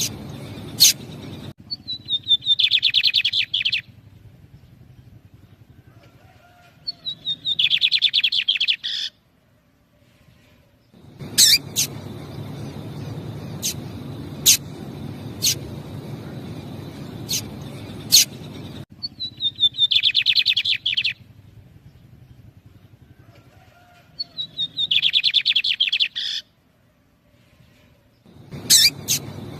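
Lined seedeater (bigodinho) song: four phrases of rapid, closely spaced notes, each about two seconds long, with gaps between them. Sharp single clicks fall between the phrases.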